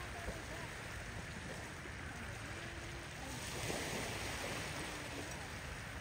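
Surf washing onto a beach, a steady rush of water that swells with one wave about three and a half seconds in.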